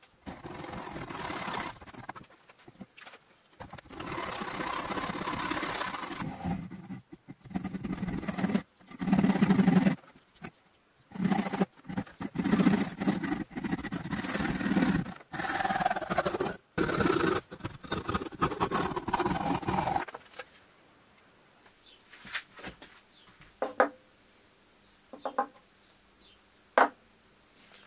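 Hand saw cutting through the end of an African padauk handle, in runs of rasping back-and-forth strokes broken by short pauses. The sawing stops about twenty seconds in, followed by a few light, sharp knocks.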